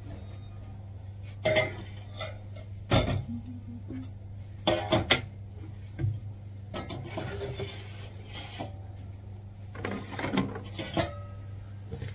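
Stainless steel bowls and pots knocking and clattering against each other and the counter as they are handled, in several separate clanks, over a steady low hum.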